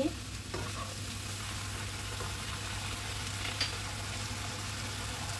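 Vegetables and fish balls sizzling steadily in hot oil in a non-stick pan, with a few light clicks of a plastic spatula in the pan.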